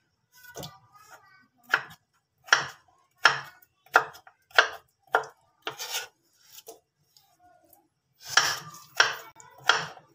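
Kitchen knife cutting potato slices into triangles on a wooden chopping board: about ten sharp knocks of the blade on the board, well under a second apart, with a pause of about two seconds a little after the middle.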